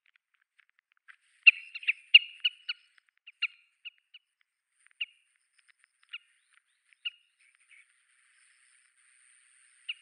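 Small flock of Oriental Pratincoles calling as they suddenly take flight: a quick run of sharp, clipped calls about a second and a half in, then single calls about a second apart that thin out.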